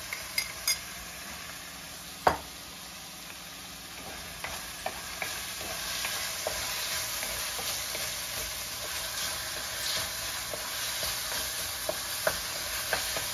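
A tomato and ground-meat mixture sizzles in a nonstick frying pan while a wooden spoon stirs it, with light scrapes and taps against the pan. There is one sharp knock about two seconds in, and the stirring gets busier from about five seconds on.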